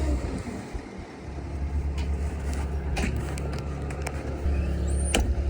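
Bobcat S76 skid steer's diesel engine running steadily, its low drone easing off briefly about a second in and then coming back, with a few sharp clanks.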